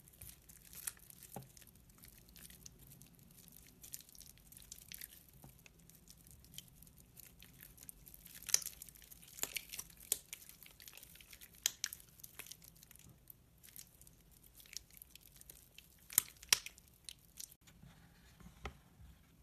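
Hands squeezing and crumbling soaked, softened soap, giving irregular crackles, crunches and squishes. The sharpest crackles come around the middle and shortly before the end.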